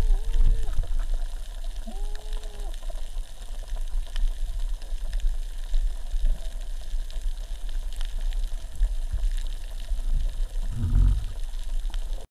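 Underwater ambience heard on an underwater camera: a steady low rumble of water movement with scattered faint clicks. A few short wavering tones sound in the first three seconds, and a louder low thump comes about eleven seconds in.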